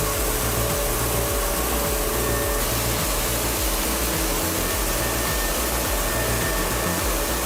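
Heavy industrial machinery running: a loud, steady mechanical noise with an uneven low rumble underneath.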